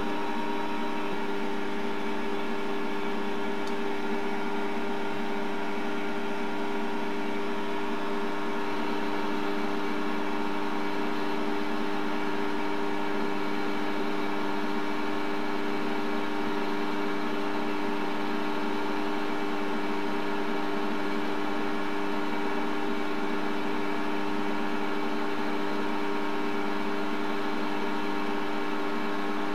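Optimum D180x300 mini metal lathe running at constant speed while turning a taper: a steady hum with several fixed tones from the motor and spindle drive, unchanging throughout.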